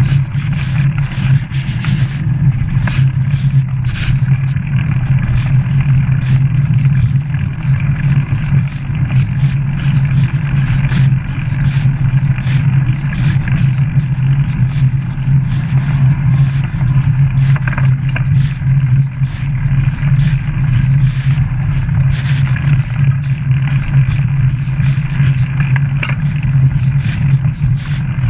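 Riding noise from a bicycle on a paved path, picked up by a chest-mounted camera: a steady low rumble with frequent small clicks and rattles.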